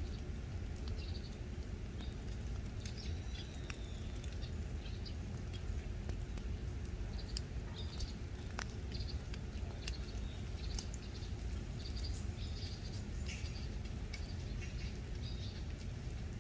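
Small birds chirping now and then in short calls over a steady low rumble, with a few faint clicks.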